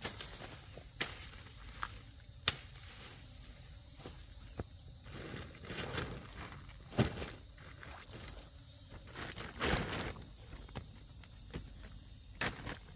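Steady high-pitched insect drone, with scattered sharp clicks, snaps and rustling over it.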